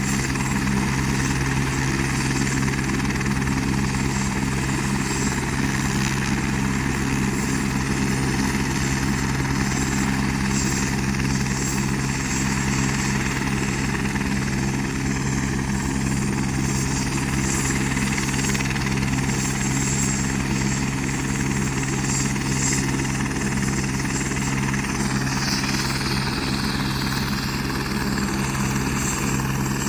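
Helicopter running steadily on the ground before lift-off: a constant engine drone over a fast, even chop of the rotor blades.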